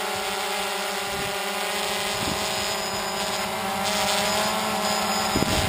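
DJI Phantom 2 quadcopter hovering close by, its four electric motors and propellers giving a steady buzz of several held pitches. A brief low thump comes near the end.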